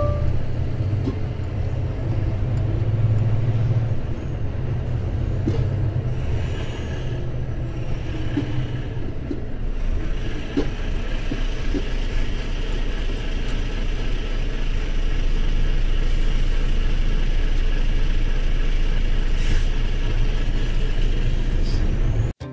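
A heavy truck's engine running with a steady low rumble and road noise. The higher hiss of the noise strengthens and the sound grows a little louder about ten seconds in.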